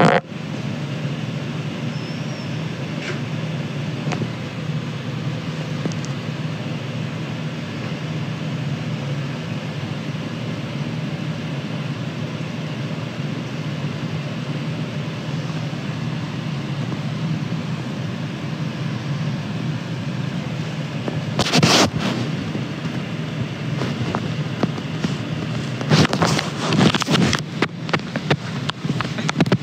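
Steady low hum and hiss of a room's background noise, with no voices. A brief rustle about two-thirds of the way through, then a run of knocks and scrapes near the end as the phone is handled.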